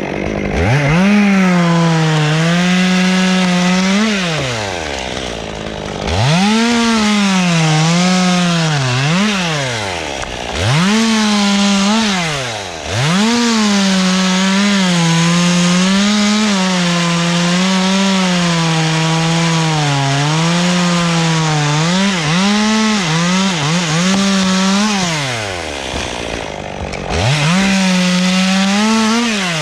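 Gas chainsaw revved to full throttle in about five bursts, one of them long, dropping back toward idle between them. Its pitch wavers and sags while held, as the chain bogs under load cutting wood.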